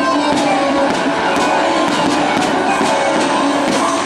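Loud music of a pyromusical fireworks show, with sharp firework cracks at intervals over it.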